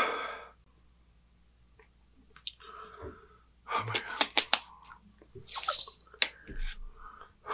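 A loud gasping breath out right after gulping water, then after a short pause scattered mouth clicks, smacks and breaths, with a few sharp clicks and rustles.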